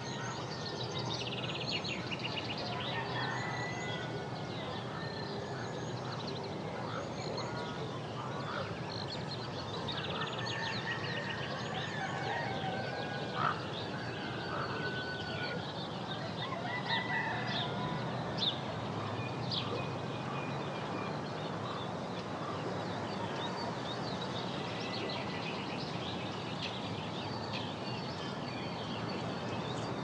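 Forest ambience: many birds calling at once over a steady wash of background noise, with a few louder calls standing out in the middle.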